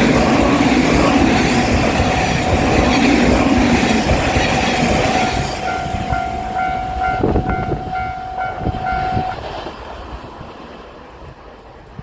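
A train passes over a Japanese level crossing, its rumble loud for about five seconds and then fading, while the crossing's warning bell keeps up its repeating clang until it stops about nine seconds in.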